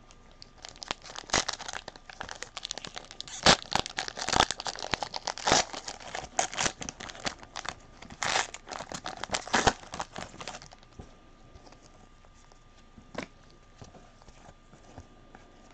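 Foil wrappers of football card packs being torn open and crinkled: a dense run of sharp crackles and snaps for about ten seconds, then quieter handling with a single click a few seconds later.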